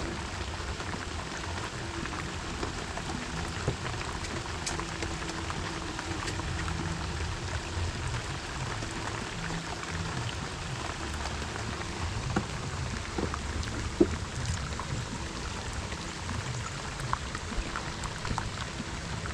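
Heavy rain falling steadily, with a few sharper drop hits now and then, the loudest about 14 seconds in.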